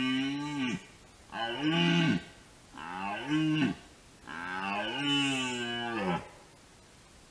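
Red deer stag roaring in the rut: a deep call tails off early, then three more roars follow, the last and longest lasting about two seconds.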